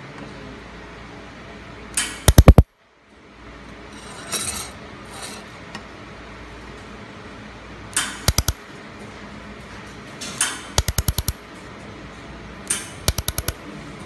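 Handheld fiber laser welder tack-welding a steel square-tube corner joint: four short groups of rapid, sharp snaps, three to seven in each group, each group starting with a brief hiss.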